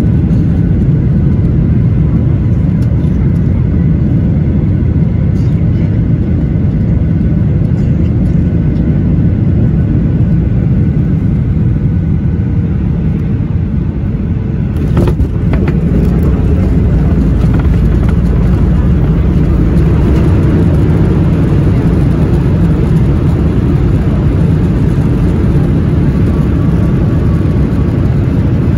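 Steady rumbling roar inside the cabin of a Boeing 737-800 airliner: its jet engines and the airflow around it. About halfway through there is a brief knock, and the noise becomes fuller and slightly louder.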